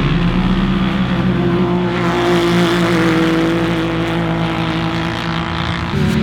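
Turbocharged Polaris RZR race UTV engine running at steady revs, over a haze of tyre and wind noise, with a small change in pitch near the end.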